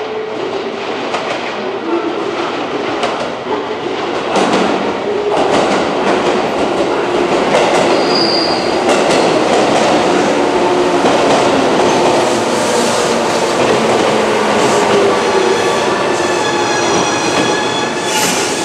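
JR Kyushu 415 series electric multiple unit running in along the platform, its wheels clacking over rail joints, getting louder about four seconds in. A brief high squeal comes about halfway through, and in the last few seconds a steady high squeal of several tones comes as the train slows.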